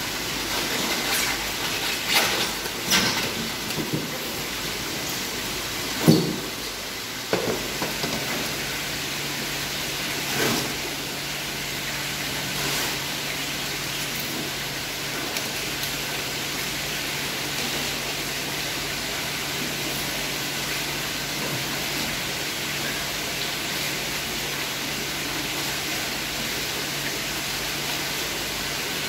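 Water gushing from a pipe into a concrete lobster holding tank, with several knocks and a loud thump about six seconds in. After about eight seconds a steady hiss continues with a low hum.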